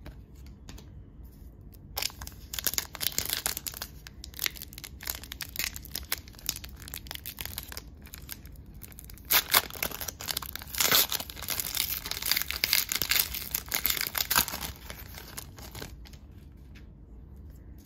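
A trading card pack wrapper being torn open and crinkled by hand. The crackling starts about two seconds in, is loudest in the second half, and stops a couple of seconds before the end.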